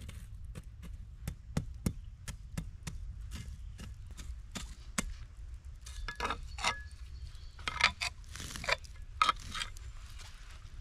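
Irregular sharp wooden cracks and knocks over a low steady rumble, with a cluster of louder knocks about six to nine and a half seconds in, like wood being chopped or split.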